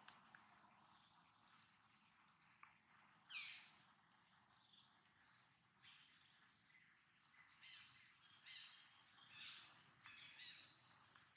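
Near silence: faint outdoor ambience with scattered high bird chirps, the loudest a single quick sliding call about three seconds in.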